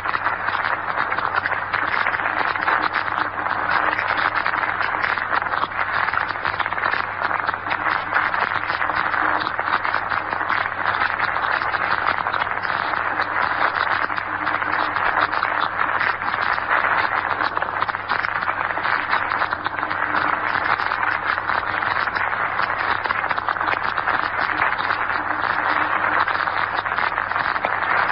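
Shortwave radio static: a steady hiss with fine crackle and a low hum underneath, the relay circuit carrying noise but no program.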